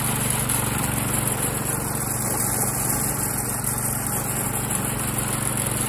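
Small general-purpose petrol engine on a home-built radio-controlled lawn mower running steadily at an even, low hum while the mower drives slowly.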